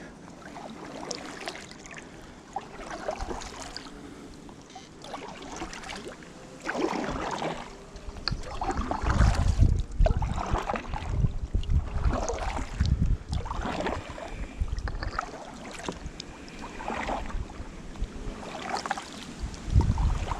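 Kayak paddle strokes: the blades dip and splash in the water in a steady rhythm, about one stroke every two seconds.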